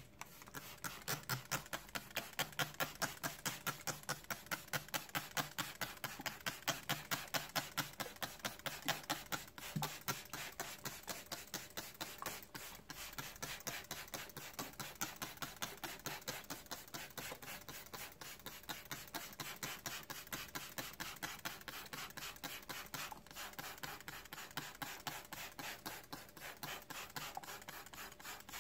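Hand trigger spray bottle squeezed rapidly and repeatedly, misting water onto a seed tray of potting mix: a quick string of short spray hisses, about three a second. It is a little louder for the first ten seconds or so.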